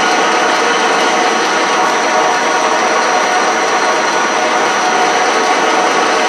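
South Bend 13-inch lathe running steadily under power feed, its carriage traversing. The gear train makes a constant mechanical whir and clatter, noisy because the outboard gears are straight-cut and run unlubricated with their cover panel off.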